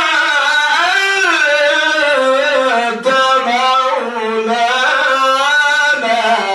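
A man's solo voice reciting the Quran in melodic tajweed style, holding long ornamented notes whose pitch slides up and down, with a brief break for breath about three seconds in.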